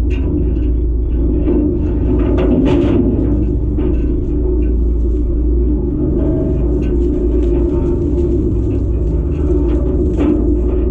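Heavy diesel machinery running steadily, with irregular clanks and knocks over the engine sound.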